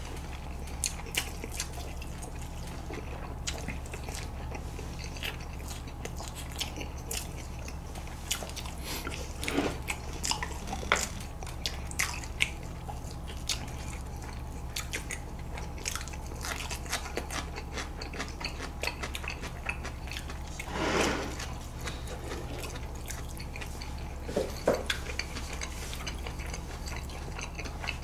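Two people eating noodles and pork cutlet: chewing, with scattered light clicks of chopsticks against bowls and plates and a short slurp about two-thirds of the way in, over a steady low hum.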